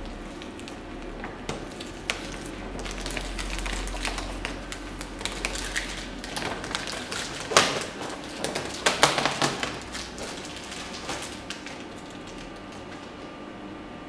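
Self-adhesive vinyl film being handled and peeled from its backing on a vinyl cutter: irregular crackling and clicking, loudest in a dense cluster about seven and a half to nine and a half seconds in.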